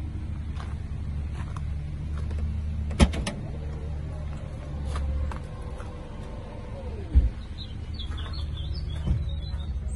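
Volvo XC90's power tailgate opening: a sharp click about three seconds in as the latch releases, then the tailgate motor whining steadily as it lifts. The whine falls in pitch and stops with a thump a few seconds later as the tailgate reaches the top.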